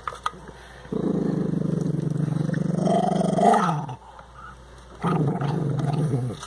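A dog growling over the ice it is chewing: two long, low growls, the first about three seconds long and rising in pitch near its end, the second shorter, about a second and a half.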